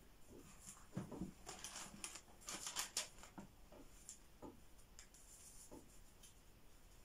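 Faint, irregular rustling and light clicks of a book's paper pages being handled, busiest a second or so in.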